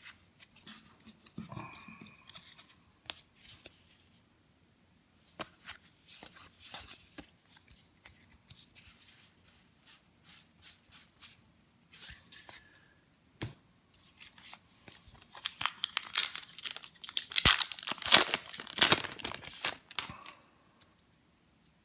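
Baseball trading cards flipped and slid against one another by hand, a scatter of soft snaps and clicks. About three-quarters of the way in, a card pack's wrapper is torn open and crinkled for several seconds, the loudest sound.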